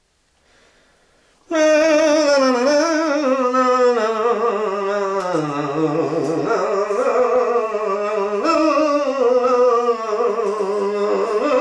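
A voice humming a wordless tune with a wavering, gliding pitch, starting about a second and a half in.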